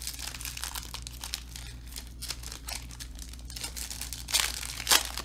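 Foil trading-card pack wrappers crinkling and tearing as packs are ripped open by hand, with two louder rips near the end.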